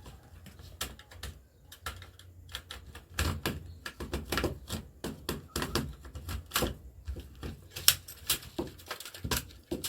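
Plastic casing of an electric mosquito bat being pried apart by hand: a run of irregular clicks and snaps as the cover comes loose.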